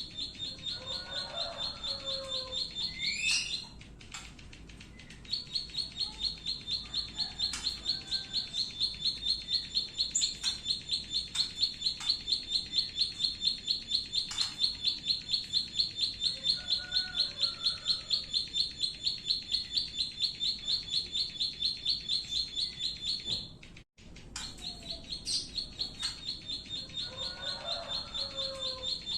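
A small songbird repeating a high, rapid 'klik klik' note in a long unbroken run, several notes a second. The run pauses briefly twice, and softer, lower chattering notes come in now and then.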